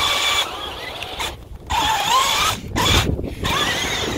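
Hot Wheels RC Terrain Twister's small electric drive motors whining as its twisting treads churn through beach sand. The whine wavers in pitch and cuts out briefly three times.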